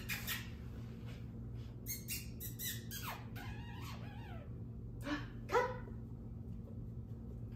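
A puppy giving a few short, high yips, a cluster of them a couple of seconds in and two more past the five-second mark.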